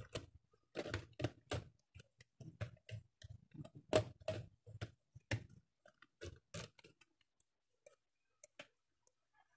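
Irregular clicks and rustles of insulated electrical wire being handled and worked into place, several a second for about seven seconds, thinning to a few scattered ticks near the end.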